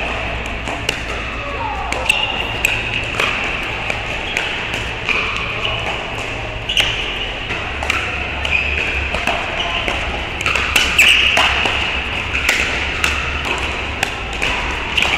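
Pickleball paddles striking a plastic pickleball during a rally: repeated sharp pops at irregular intervals, over steady background noise.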